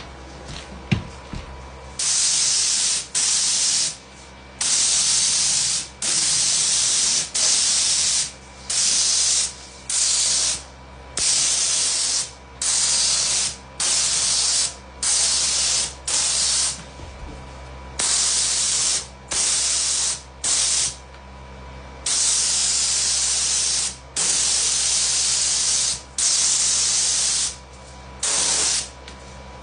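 HVLP spray gun atomizing satin lacquer, hissing in about twenty short bursts as the trigger is pulled for each pass and released between passes. The first burst comes about two seconds in.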